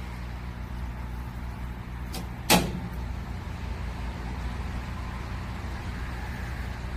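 Steady low mechanical hum, with one sharp click about two and a half seconds in.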